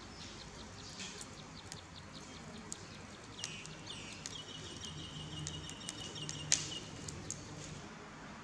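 Lump charcoal burning in a clay stove, giving off scattered sharp crackles and pops. Birds chirp in the background, with a run of quick high notes in the middle.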